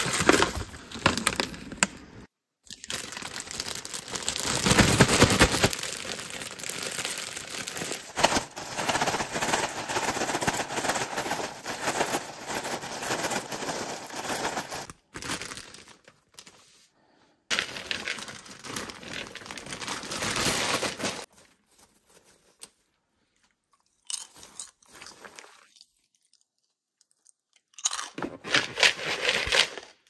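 Popcorn being shaken in a clear plastic bag with its seasonings: the plastic crinkles and the popcorn rustles and crunches against it. The noise comes in long stretches, with several short breaks and a quiet gap later on.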